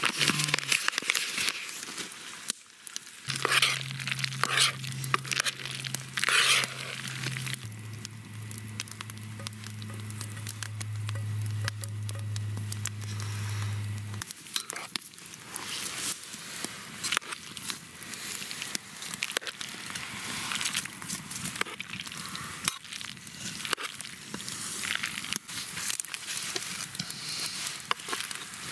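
Ground beef frying in a pan, with steady sizzling and crackling.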